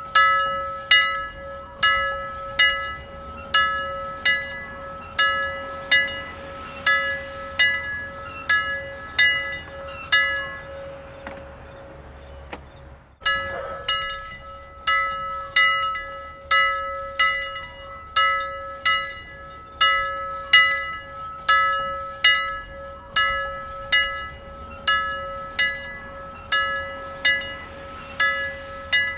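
Church bell ringing in steady, evenly spaced strokes, a little more than one a second, each leaving a ringing hum. The strokes die away about eleven seconds in, break off with a sharp click, and then start again at the same pace.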